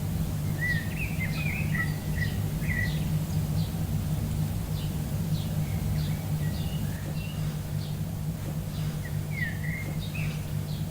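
Birds chirping, with many short calls and quick rising and falling notes, over a steady low hum.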